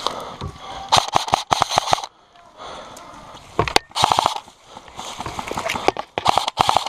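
Airsoft guns firing on full auto in three short bursts of rapid popping, each about half a second to a second long, with pauses between.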